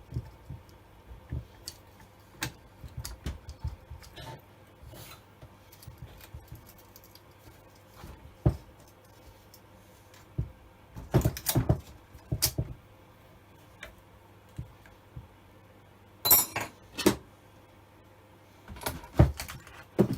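Scattered metallic clinks, knocks and clatters of hand tools and chainsaw parts being handled, busiest about halfway through and near the end, over a steady low hum. The saw is not running.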